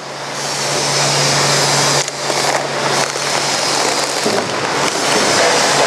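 Clear polypropylene film crackling and rustling as it is pulled and peeled off a roll, with a brief pause about two seconds in. A steady low machine hum runs beneath it.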